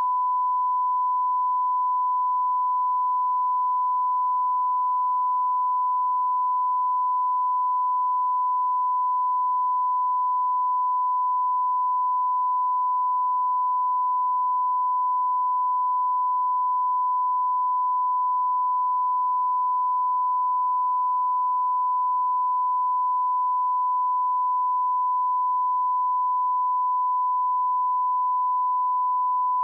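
Steady 1 kHz sine-wave test tone at −20 dBFS, a pure unbroken pitch used for calibrating audio equipment.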